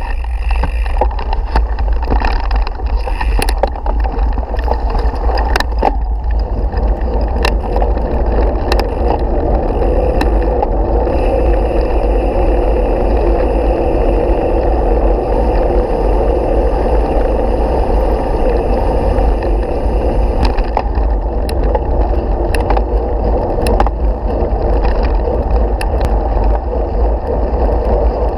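A mountain bike rolling fast over a dirt and gravel road, heard from a handlebar-mounted camera: steady low wind and road rumble on the microphone with tyre noise, and scattered clicks and rattles as the bike jolts.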